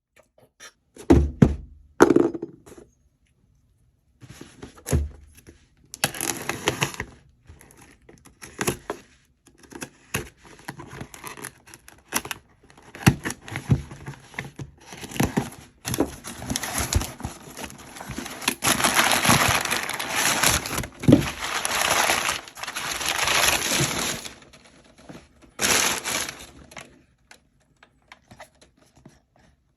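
Packaging being handled and opened: a few sharp knocks and thumps in the first seconds, then long stretches of rustling, tearing and crinkling, busiest in the second half.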